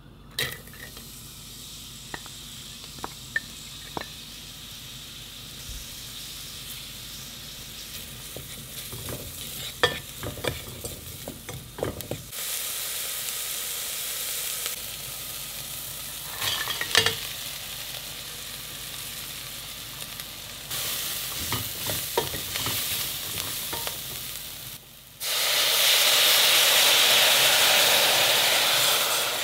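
Diced onion sizzling in olive oil in a stainless steel saucepan, stirred with sharp knocks and scrapes against the pot. About 25 seconds in, vegetable broth is poured over soy protein chunks in the hot pan, and a much louder rushing hiss takes over.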